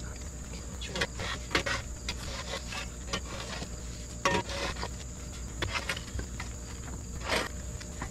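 Steady high-pitched insect drone, with irregular knocks and scrapes from work going on.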